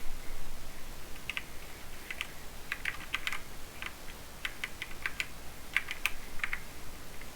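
Mechanical keyboard with Cherry MX Silver linear speed switches being typed on: irregular keystrokes, many in quick pairs, starting about a second in and stopping shortly before the end.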